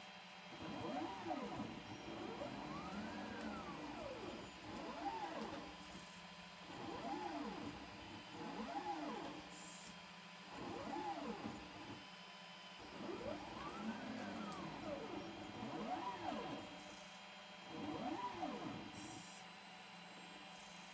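Niryo One six-axis robotic arm's joint motors whining as the arm moves. The pitch rises and falls in repeated arcs, several overlapping, as the joints speed up and slow through each move, with short pauses between moves.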